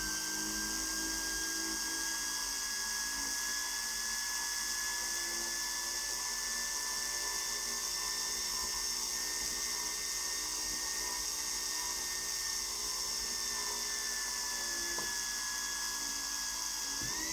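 Gintschel Tornado model steam turbine running with a steady high whine over a hiss of steam, labouring to turn a Ferris wheel accessory. The whine drifts slightly in pitch, sags a little, then starts to rise sharply right at the end as the turbine speeds up.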